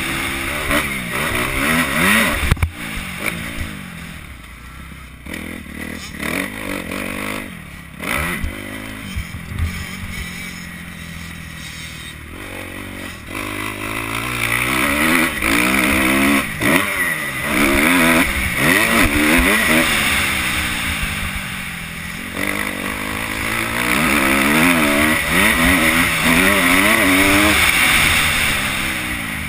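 Kawasaki KX250F four-stroke single-cylinder motocross engine revving up and down as the bike is ridden, its pitch rising and falling again and again. It backs off for several seconds in the first half, then pulls hard through the second half. A few sharp knocks are heard along the way.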